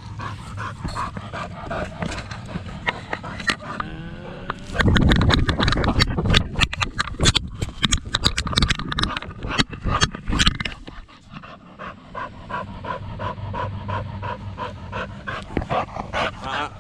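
Pit bull panting quickly and rhythmically, tired from playing fetch. From about 5 to 10 seconds in, louder rumbling and sharp knocks cover the panting.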